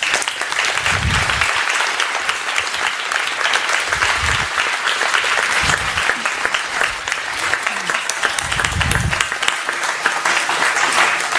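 A small audience applauding, dense steady clapping that starts all at once.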